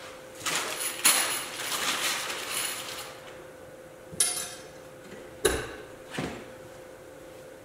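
Metal clinking and scraping as steel EMT conduit and its fittings are handled and worked with a hand tool against a wall, for about two and a half seconds, then three separate sharp knocks.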